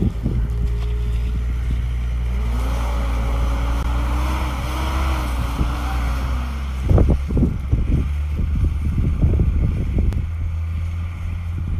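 Blizzard wind buffeting the microphone: a heavy rumble with gusts surging in and out. A faint wavering tone rises and falls for a few seconds near the middle.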